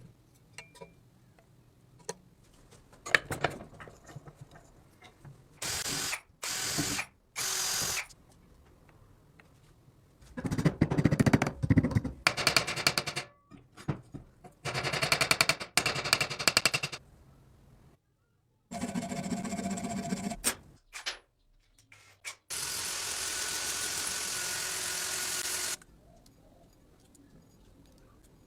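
Power tools running in a series of short separate bursts, each starting and stopping abruptly, ending with one steadier hiss-like run of about three seconds.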